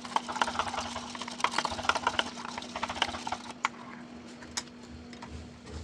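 Cooled custard being beaten in a plastic bowl with a metal wire beater: rapid clicking and tapping of the beater in the thick mixture and against the bowl. The clicking thins out about halfway through.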